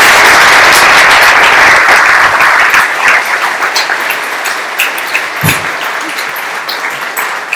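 Audience applauding, full and dense for about the first three seconds, then dying away to scattered claps.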